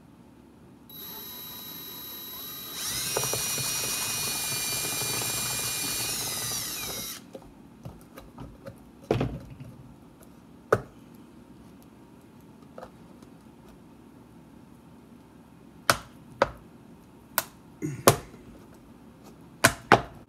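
DeWalt cordless drill with a step bit boring a hole in a plastic bottle: the motor starts with a whine about a second in, runs faster and louder for about four seconds, then stops. Several sharp clicks and knocks follow.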